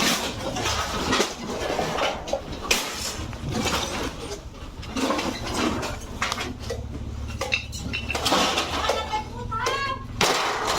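Repeated clattering and clinking of hard objects, with a steady low hum underneath. A short, wavering pitched sound comes near the end.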